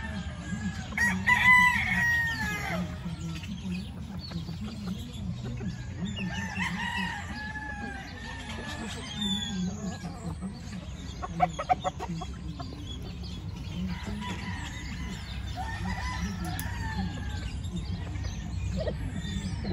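Gamefowl roosters crowing, the loudest crow about a second in and others later, with chickens clucking in between. A quick run of clicks near the middle, over a steady low hum.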